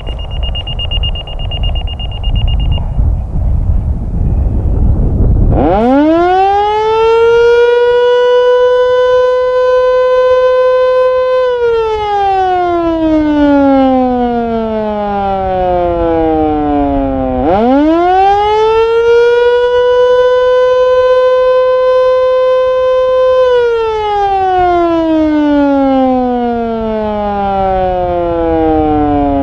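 Federal Signal Canadian Model 2 fire siren on a test run. After about five seconds of wind noise it winds up quickly to a steady single-tone wail, holds for about six seconds, then winds down. Partway down it spins back up for a second cycle and is winding down again near the end. The short two-cycle run is a weekly test.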